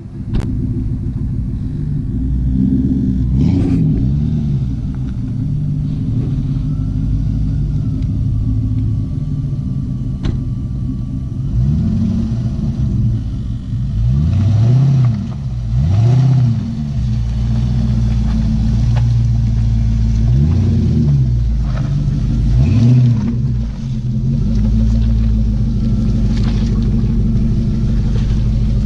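Jeep Grand Cherokee's 4.7-litre V8 through a Flowmaster muffler exhaust, running low and rumbling, revved up and let fall again several times as the Jeep works through mud.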